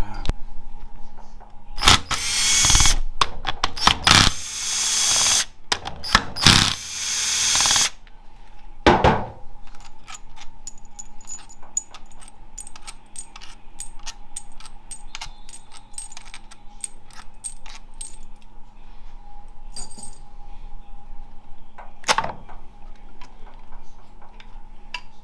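Cordless power tool running in four short bursts, backing out bolts on a 4L65E automatic transmission's valve body. Then comes a long run of small metal clicks and clinks as bolts and parts are handled, with one louder knock near the end.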